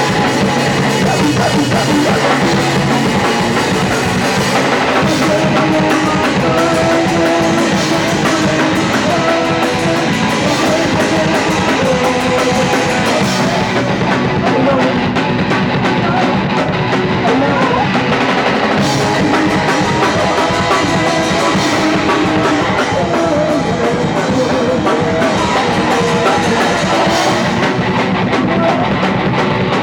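Live punk rock band playing loud and without a break, drum kit and electric guitar driving the song.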